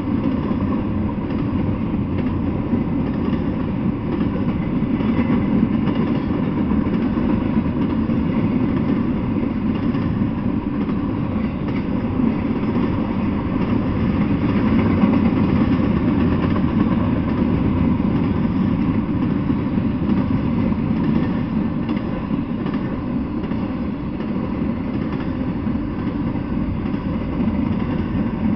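Intermodal freight train cars rolling past, a steady rumble of steel wheels on the rails.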